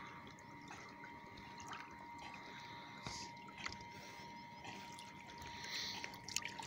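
Faint water lapping and trickling as a young moose swims close alongside a small boat.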